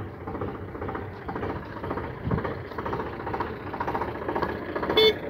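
Eicher tractor's diesel engine running steadily with a rattling note, and a horn giving one short toot near the end.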